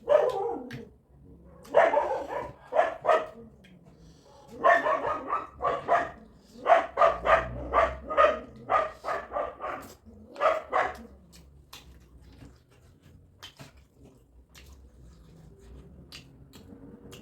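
A dog barking in a run of short, repeated barks over the first eleven seconds or so, then only faint small clicks.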